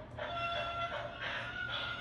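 Electronic Thomas & Friends sound book playing a steam-train sound effect through its small speaker, set off from the book's button panel: a steady hiss with a thin steady tone over it.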